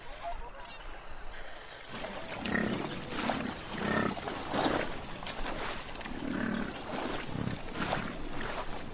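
American bison grunting repeatedly as it wades through shallow water, with splashing. The low grunts begin about two seconds in and come roughly once a second.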